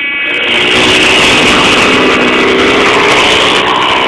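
Several ice speedway motorcycles racing, their 500 cc single-cylinder engines revving hard. The sound swells over the first second and then holds loud.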